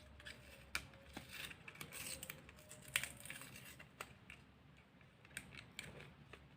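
Faint rustling and crinkling of packaging being handled, with a few sharp clicks, the loudest about three seconds in, as a laptop RAM module is taken out of its box.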